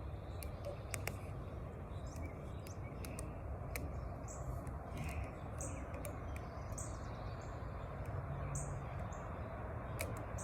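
Small birds chirping now and then, short high calls every second or two, over a steady low outdoor background hum, with scattered light clicks.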